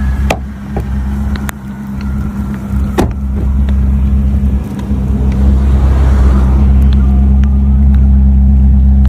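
A motor vehicle's engine running steadily with an even low drone. A few sharp clicks come in the first three seconds, and a brief hiss swells around six seconds in.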